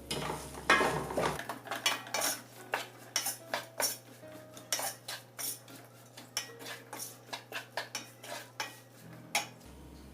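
A spoon stirring vegetables in a cooking pan, with repeated irregular clinks and knocks against the pan, a few each second.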